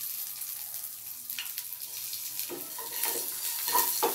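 Chopped green chillies, curry leaves, mustard seeds and urad dal sizzling in oil in a non-stick kadhai, stirred with a wooden spatula. The spatula strokes scrape the pan in quick succession from about two and a half seconds in.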